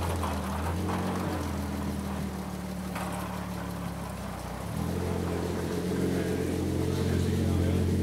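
Jaguar C-Type's 3.4-litre inline-six running at low revs while the car creeps along. About five seconds in, a little throttle makes the note louder and fuller.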